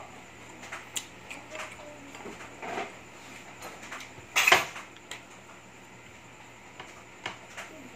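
Spoon and fork clinking and scraping against bowls while eating, in scattered light clicks, with one louder clatter about halfway through.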